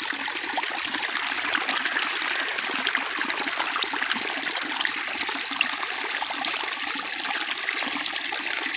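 Water flowing steadily in a foamy stream: an even rush dense with small splashes and bubbling.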